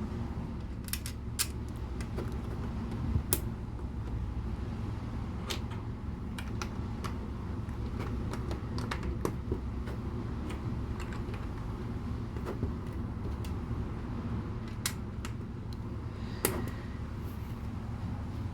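Plastic LEGO pieces clicking and rattling as they are picked out and pressed together, scattered irregular clicks over a steady low hum.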